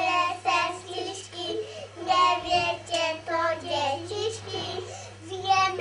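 Young children singing a song in high voices, in held, phrase-by-phrase notes, over a steady low hum.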